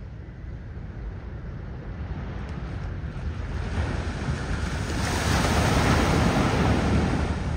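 Small waves washing onto the beach, with wind buffeting the microphone as a low rumble. The surf builds, and a wave breaks loudest about five to seven seconds in.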